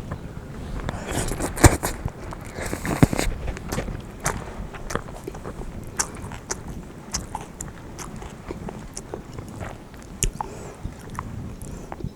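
Eating bibim-guksu (spicy mixed noodles): biting and chewing, with many short wet clicks throughout and a busier, louder stretch in the first three seconds.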